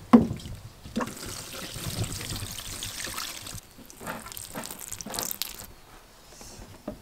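Water pouring from a watering can's rose onto potted plants, in two pours: a longer one starting about a second in and a short one near the five-second mark, with a few light knocks as the can is handled.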